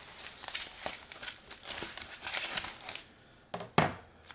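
A foam packing sleeve rustling and crinkling as an electronic device is slid out of it, then one sharp knock near the end.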